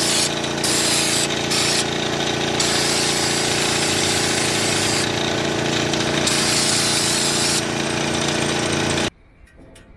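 Woolwax air-powered undercoating gun spraying undercoating, hissing in repeated bursts of a fraction of a second to about two seconds as the trigger is pulled and released, over a steady mechanical hum. All of it cuts off suddenly about nine seconds in.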